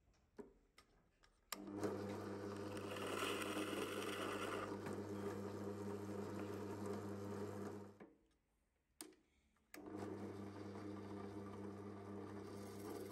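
Drill press motor running with a steady hum while a Forstner bit bores into plywood, with cutting noise for a few seconds early on. The motor stops about eight seconds in, a click follows, and it starts again about ten seconds in as a twist bit drills into a small wooden piece.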